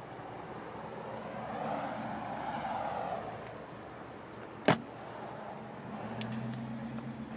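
Steady background traffic noise that swells and fades as a vehicle goes by, with one sharp click a little past the middle.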